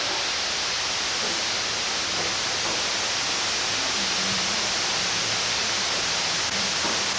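Steady, even hiss of tape noise, with no music yet.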